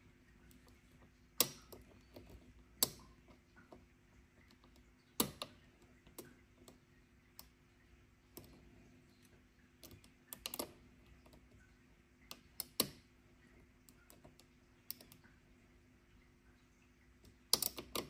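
A lock pick and tension wrench working the pins of a cylinder lock: scattered small metal clicks and faint scraping ticks, with about seven sharper clicks spread through.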